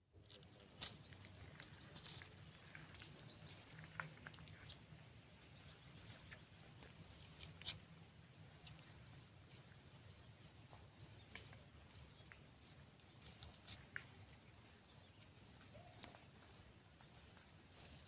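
Faint woodland ambience: a steady high insect drone with many short, high chirps over it and a few sharp clicks.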